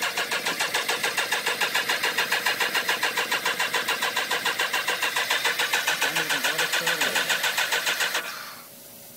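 2002 BMW K1200RS motorcycle's inline four-cylinder engine being cranked on the electric starter, an even pulsing of about eight beats a second that goes on for about eight seconds and then stops.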